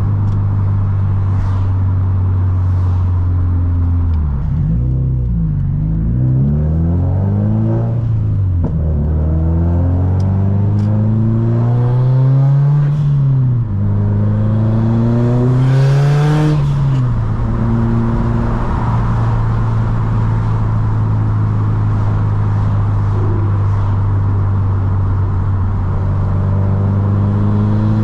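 Subaru STI's turbocharged flat-four engine under way, a steady drone at cruise. In the middle the revs rise and fall several times as it accelerates and shifts, with a short hiss at the last rise, then it settles back to a steady cruise.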